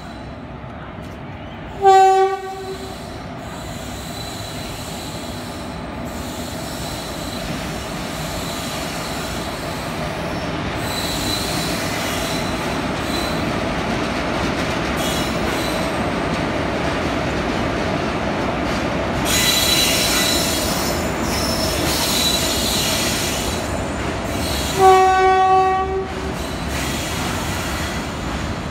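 Twin WAG-7 electric locomotives hauling a goods train through the station without stopping. A short single-note horn blast sounds about two seconds in, then the locomotives and wagons run past with a steadily rising rail noise. A second, slightly longer horn blast comes near the end.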